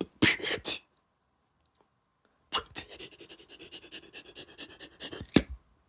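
A person making sneeze sounds with the voice and breath: a few short, sharp bursts, a pause, then a fluttering, stuttering breath build-up of about three seconds that ends in one loud, sharp sneeze burst.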